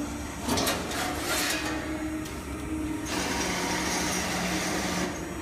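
Folded sheet-steel panel rattling and flexing in two or three short crashes as it is handled out of a hydraulic panbrake folder, followed about three seconds in by a steady machine hum with hiss that runs for about two seconds and stops abruptly.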